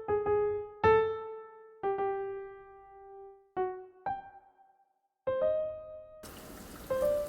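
Slow solo piano music: single notes that ring and die away, then a short silence. About six seconds in, a steady hiss of rain comes in beneath the piano.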